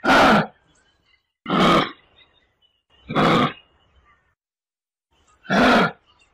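Kangaroo grunting: four short harsh grunts, each about half a second long, with uneven pauses between them.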